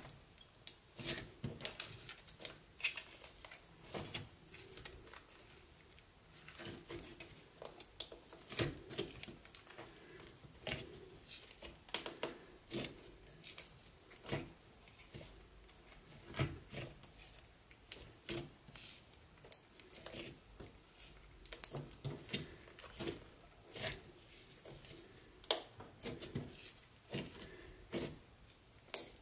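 Sticky slime being poked and pressed, giving many small, sharp sticky pops and crackles at an irregular pace, a few each second, with softer squelches between them.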